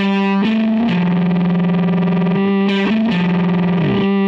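Electric guitar through a Boss DF-2 Super Feedbacker & Distortion pedal, a distorted note held in the pedal's sustained feedback. The pitch steps up and down a few times and slides down near the end.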